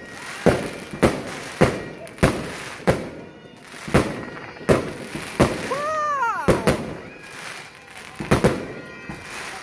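Fireworks going off in quick succession: sharp bangs about every half second to a second, with a hissing, crackling haze between them. About six seconds in there is a short tone that rises and then falls.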